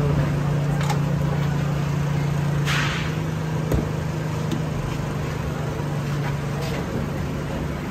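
Steady low mechanical hum, with a few light knocks as balls of dough are handled and set down on a wooden tray, and a brief hiss near the middle.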